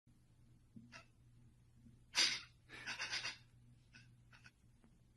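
A person breathing hard: a sharp breath about two seconds in, then a few short quick breaths, over a low steady hum.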